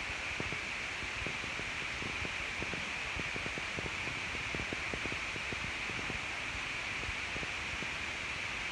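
A steady, even hiss with soft scattered crackles through it.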